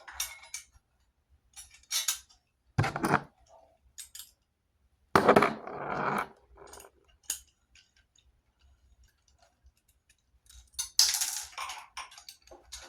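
Intermittent metallic clinks, taps and rattles of hand tools and metal parts being handled on the scooter's headlight cage and bolts, with a heavier clatter about five seconds in and a louder rattling burst near the end.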